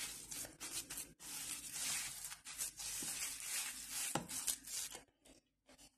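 Hand rubbing and squeezing crushed butter biscuits with melted butter in a bowl, mixing a cheesecake crumb base: an irregular gritty rustle that stops about five seconds in.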